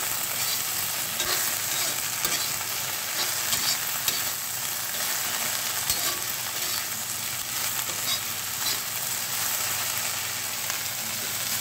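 Chopped okra frying in mustard oil in a pan with a steady sizzle, while it is stirred and scraped against the pan, giving frequent short clicks.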